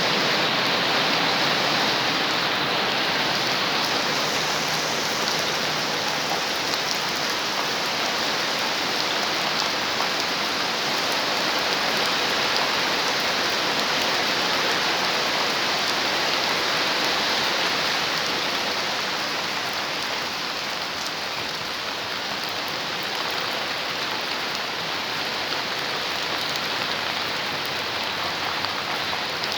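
Steady rain falling, a dense even hiss of many drops, easing slightly about two-thirds of the way through.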